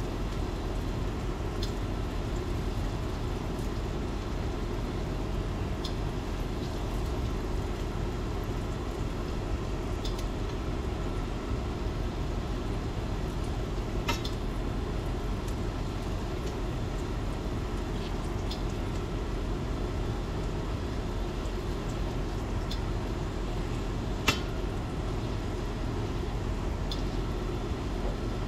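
Metal tongs clicking and scraping against a stainless steel skillet as butter is pushed around the pan, over a steady low background noise. The clicks are short and scattered; two louder ones come about halfway and near the end.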